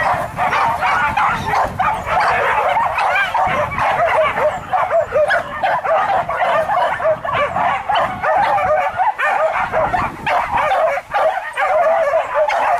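A pack of boar-hunting dogs yelping and whining without a break, many voices overlapping.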